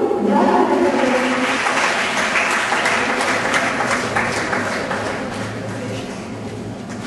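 Audience applauding, a dense patter of many hands clapping that dies away near the end, with the last of some music fading out at the start.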